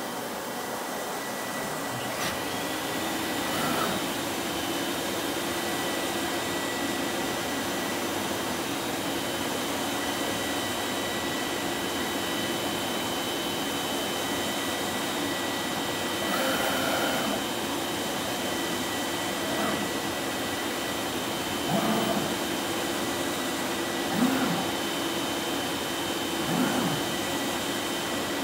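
Colex SharpCut 5x5 flatbed cutting table running: a steady blower-like rush, joined about two seconds in by a steady high whine and a low hum. A few brief, louder whirs come later as the cutting head moves across the board.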